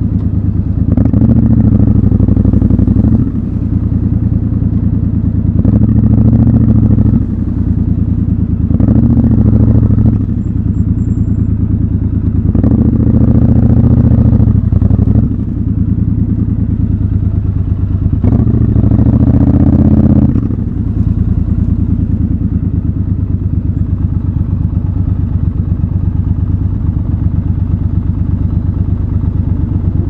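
Triumph Scrambler 1200 XC's 1200 cc parallel-twin engine heard from the saddle, with five short bursts of throttle as it moves off at low speed in slow traffic. It then idles steadily for about the last nine seconds while stopped.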